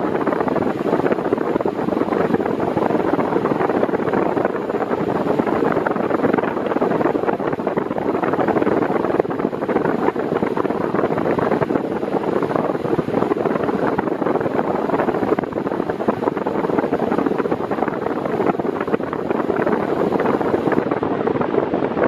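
Arno Silence Force 40 cm (VF40) electric fan running at medium speed: a steady, loud rush of its airflow blowing straight onto the microphone, with air moving at about 36 km/h.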